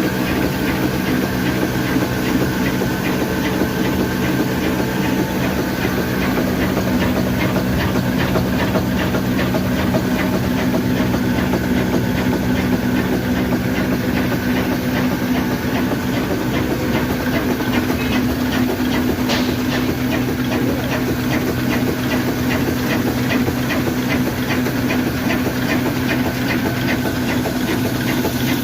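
Heavy old black diesel engine on a flour mill (atta chakki) running steadily, with an even, fast firing beat and a hiss over it.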